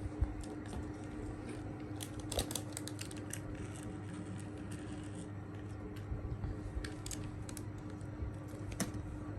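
Light, scattered clicks and rattles of plastic toy car-track pieces being handled and fitted together, in small clusters, over a steady low hum.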